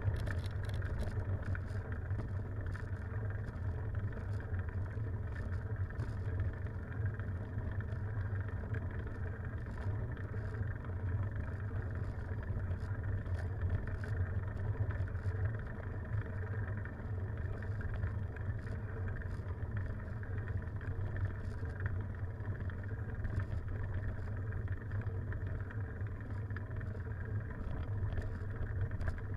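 Steady, dull rumble of wind and road noise picked up by a camera riding on a bicycle along an asphalt road, with faint light ticks scattered through it.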